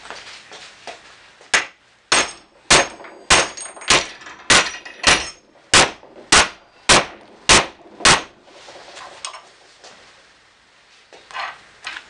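Mallet driving a pin into the cast-steel lower door hinge of a 1967 Mustang: about a dozen hard metallic strikes, a little over half a second apart, each with a short ring, then a couple of lighter knocks near the end.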